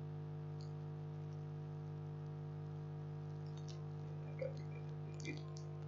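Steady electrical mains hum, with a few faint computer-mouse clicks about half a second in and again over the last two seconds.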